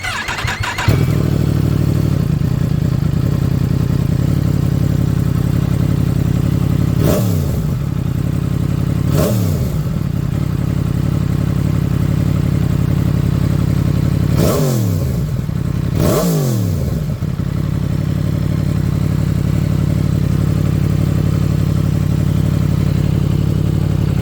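2022 Yamaha MT-10's crossplane inline-four, breathing through an empty-cored MIVV carbon slip-on muffler with the stock catalytic converter still fitted, comes up to a steady idle at the start. It is blipped four times, in two pairs about two seconds apart, each a quick rev that falls straight back to idle.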